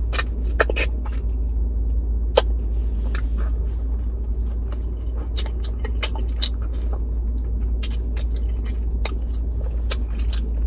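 Chewing a sandwich with mouth open: scattered wet smacks and clicks, loudest near the start, over a steady low rumble.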